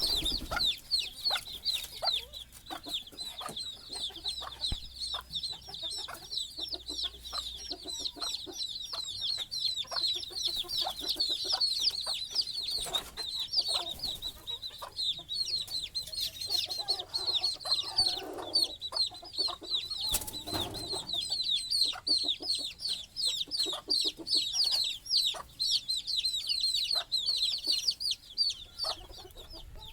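Baby chicks peeping without pause, many high chirps overlapping, with a broody mother hen's low clucks in between; her call is strongest about halfway through.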